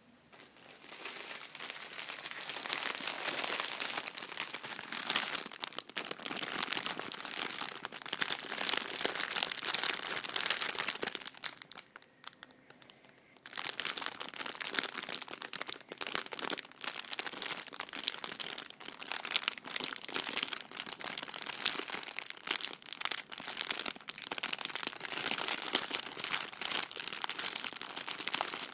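A plastic sweets multipack bag holding small wrapped mini bags, crinkled and scrunched in the hands with dense crackling. It pauses for about two seconds around the middle, then resumes.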